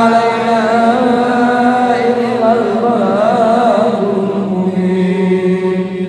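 Dhikr chant sung as one long held melodic phrase, with a wavering ornament about halfway through and a softening near the end.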